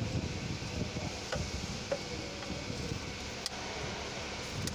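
A few light, scattered clicks of hands working plastic clips and fittings under a lifted plastic intake manifold, over steady low background noise.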